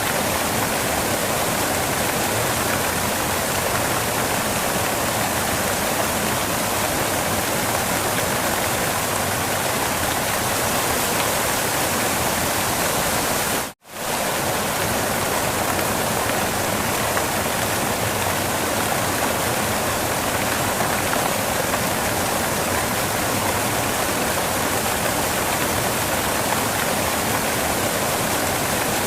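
Waterfall rushing in a steady, even roar of falling water, broken by a split-second dropout about halfway through.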